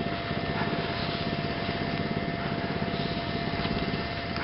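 Wind buffeting the microphone: a steady low rumble, with a faint steady tone above it.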